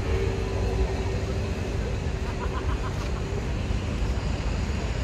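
Steady low rumble of vehicle engines, with a faint held tone for the first three seconds.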